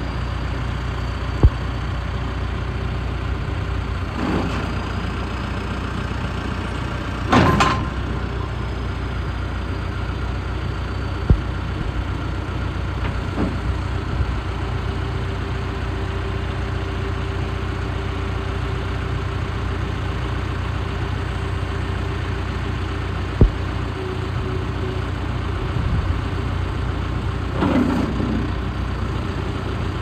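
John Deere 310K backhoe loader's diesel engine running steadily at low speed as the machine is driven and its loader arms lift, with several sharp knocks and a few brief clanking bursts. A steady whine comes in through the middle stretch.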